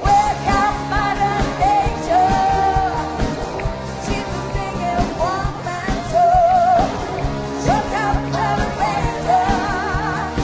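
Live pop-rock band playing, with a woman singing lead in long held notes with vibrato over the band.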